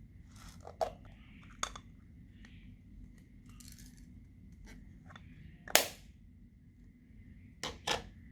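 Slime being worked by hand, giving a few short sharp pops and clicks. The loudest comes about halfway through and a quick pair near the end.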